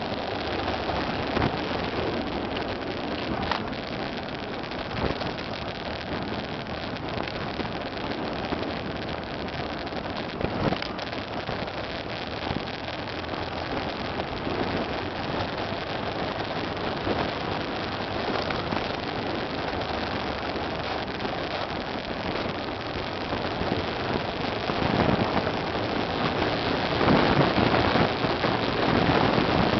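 Motorcycle riding along a sandy dirt track, heard from on the bike: a steady rush of wind over the microphone mixed with engine and tyre noise on loose ground. A couple of sharp knocks stand out, and it gets louder near the end.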